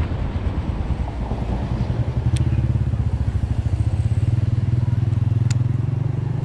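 A motorcycle engine passing close by, its low, rapidly pulsing note building about two seconds in and fading near the end.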